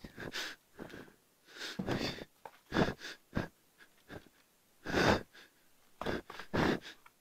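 A person breathing in short, raspy breaths, about nine in an irregular run.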